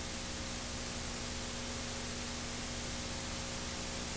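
Steady hiss with a low hum underneath: the background noise of a VHS tape playback.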